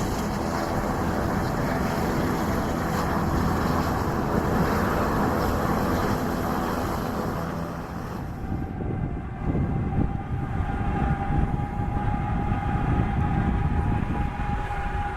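Regional jet's engines roaring during its departure. About eight seconds in, this cuts to a steady whine over a low rumble from the ramp as an aircraft is towed by a tug.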